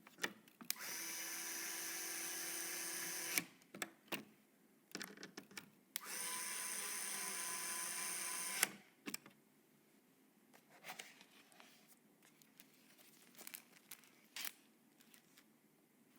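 Small electric screwdriver running twice, each time for about two and a half seconds with a steady whine, driving screws into the PC case. Short clicks and taps of parts being handled come between and after the runs.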